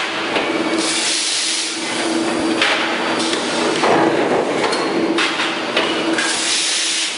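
Automatic hot forging press running its cycle: heavy metal clanks of the ram and the transfer mechanism, with bursts of hissing over a steady machine hum.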